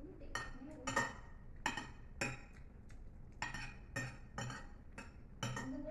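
Fork and knife clinking and scraping against plates while food is cut and picked up, about ten irregular clinks.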